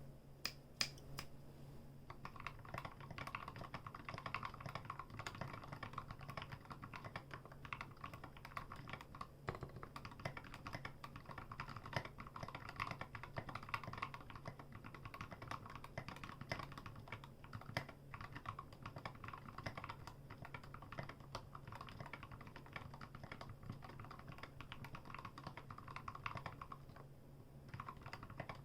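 Fast, continuous typing on a custom 60% mechanical keyboard. It has lubed Gateron Yellow linear switches on a brass plate in a rosewood case, with SA-profile ABS keycaps. The keystrokes clack densely, with a few single strokes at the start and a short break near the end.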